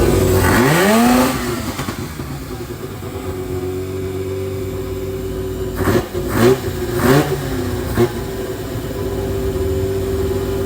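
Rotary-engined Mazda Miata revving up once, then running at a steady idle, with four brief loud blips around the middle.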